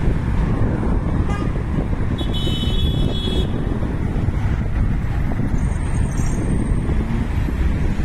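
Road traffic: cars driving through a city intersection, a steady low rumble of engines and tyres, with a brief high-pitched tone about two seconds in.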